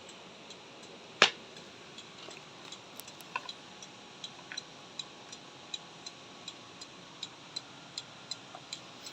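Vehicle flasher relay ticking steadily, about three clicks a second, as the lamps blink. A single louder click comes about a second in, before the ticking starts.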